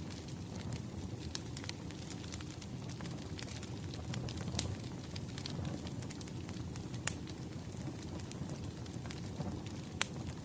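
Wood fire crackling: a steady low rumble of burning logs with scattered sharp pops, the loudest about seven seconds in and again near the end.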